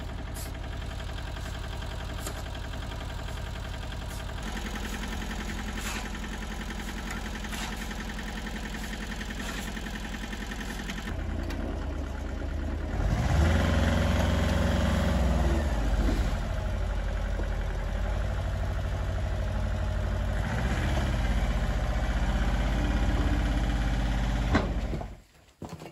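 Engine of a small motorised site dumper running steadily, working harder and louder about halfway through, then cutting off near the end.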